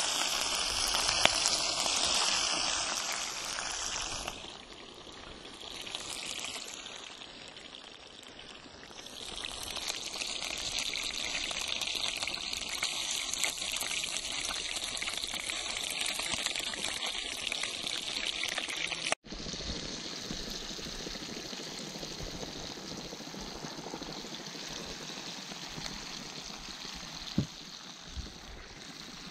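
Pieces of fresh pike sizzling and crackling in hot oil in a frying pan. The sizzle is strongest at the start, dies down briefly, swells again, and after a break about 19 seconds in goes on softer and steady.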